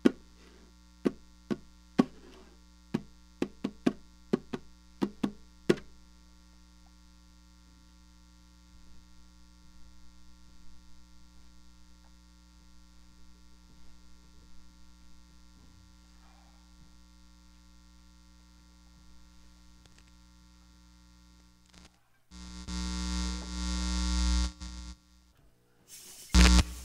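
Steady electrical mains hum, broken in the first six seconds by about a dozen sharp knocks. Near the end comes a loud burst of buzzing noise lasting about three seconds, then a single loud thump.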